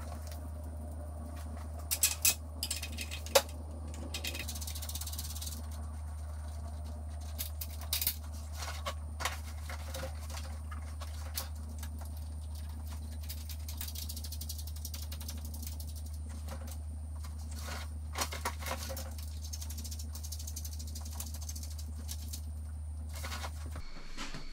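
Scattered metallic clicks and clinks of hand tools and hardware as the nuts of a strut tower brace are fitted, coming in a few short clusters, over a steady low hum that cuts out near the end.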